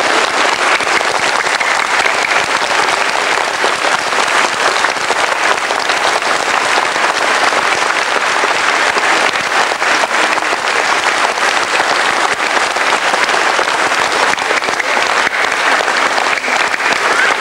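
A large church congregation applauding: a long, unbroken round of clapping that holds at an even level.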